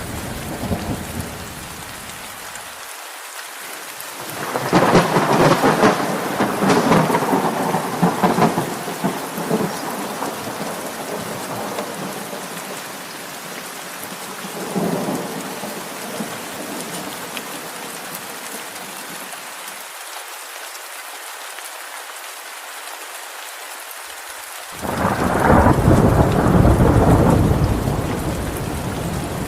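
Steady rain with rolls of thunder: a long rumble about five seconds in, a fainter one around fifteen seconds, and a loud one near the end.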